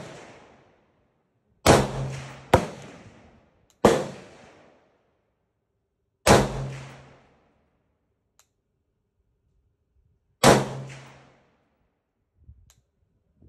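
AR-15 rifle with a Precision Armament Hypertap muzzle brake firing five single shots at an uneven pace, the first two under a second apart. Each sharp report echoes under the covered firing line and dies away over about a second.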